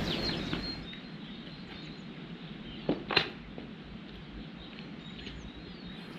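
Quiet outdoor ambience with a few faint, high bird chirps, and two short clicks a fraction of a second apart about three seconds in.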